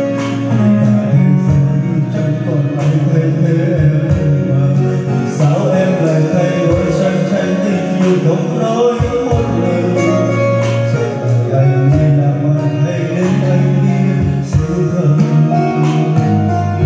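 A singer performing a slow ballad over backing music with guitar, heard over the room's sound system.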